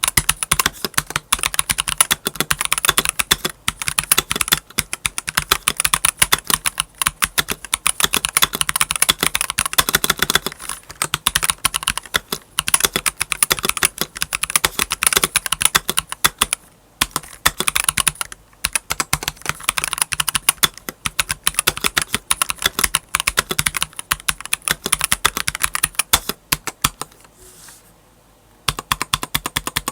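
Fast typing on an Akko 5075 plastic mechanical keyboard: a dense stream of keystroke clacks, with brief pauses in the middle and a longer one near the end. Its stock keycaps are ones the owner finds hollow and cheap-sounding.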